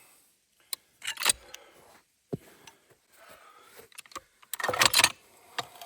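Hi-Lift jack being worked: scattered metallic clicks and clacks of the jack's ratchet mechanism and handle, with a louder burst of clattering about five seconds in.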